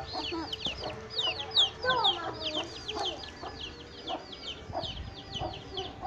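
Domestic chick peeping: a steady run of short, high, falling peeps, about five a second.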